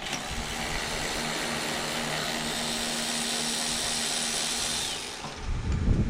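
A power tool running steadily for about five seconds, a high hissing whir over a faint steady hum, then cutting off.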